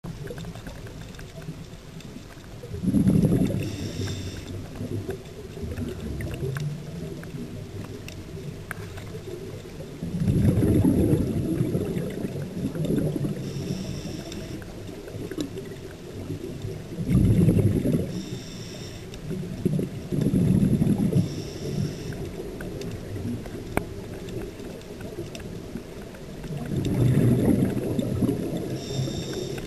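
Scuba diver breathing through a regulator, heard underwater: five loud bursts of exhaled bubbles gurgling, a few seconds apart, with fainter hissing between them.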